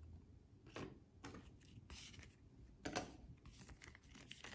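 Faint handling of baseball trading cards: several soft slides and taps as cards are moved one by one through a stack, the loudest about three seconds in.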